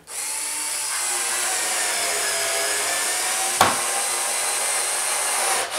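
RYOBI TEK4 4-volt cordless screwdriver running as it drives a wood screw into a single board with no pilot hole. Its whine falls slightly in pitch as the screw goes in, there is a sharp click about three and a half seconds in, and the motor stops near the end.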